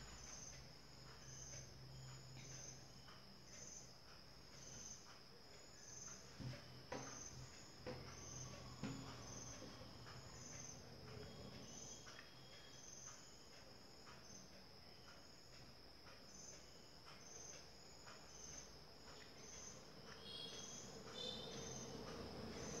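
Faint, high-pitched insect chirping that repeats at an even pace, about every three-quarters of a second, over a steady high whine. A few soft clicks from handling the yarn come in around the middle.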